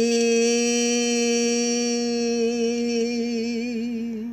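A single voice chanting Gurbani holds the final word 'samahi' as one long sung note at a steady pitch. The note wavers slightly in its second half, then breaks off near the end.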